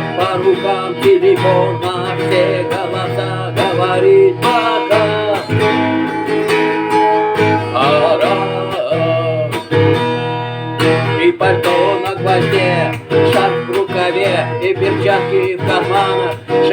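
Acoustic guitar strummed steadily, playing the accompaniment of a song.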